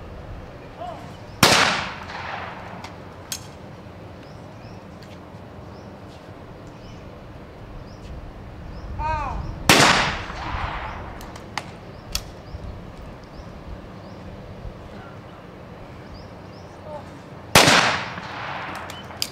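Three single shots from trap shotguns, about eight seconds apart, each a sharp report that rings out and fades over about a second.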